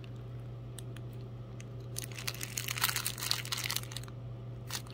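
Plastic zip-top bag of dried carnival squash seeds crinkling as it is handled, the seeds shifting and rattling against the plastic. The crackling comes in a cluster about two to three and a half seconds in, and again briefly near the end.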